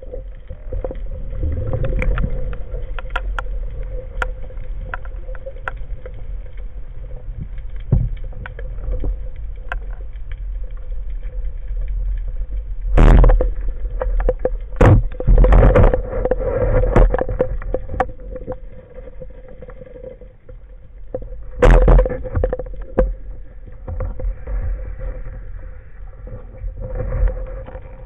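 Underwater noise picked up through a camera's waterproof housing: a steady low rumble with a faint steady hum, scattered clicks and knocks, and loud bursts of noise about 13, 15 and 22 seconds in.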